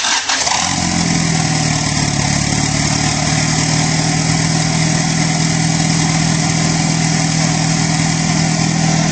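Mitsubishi Starion's turbocharged 2.6-litre G54B four-cylinder idling steadily and loudly with no downpipe fitted, the exhaust leaving open straight from the turbo.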